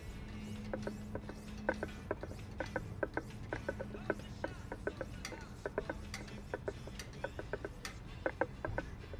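Wicked Edge guided knife sharpener in use: irregular sharp clicks and taps, a few a second, as the sharpening stones are stroked along a blade.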